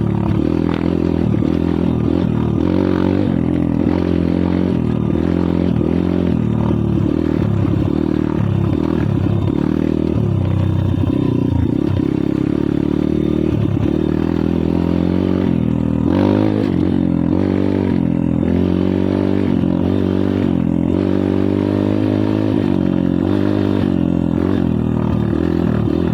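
Kayo pit bike engine running under way, its revs rising and falling as it rides.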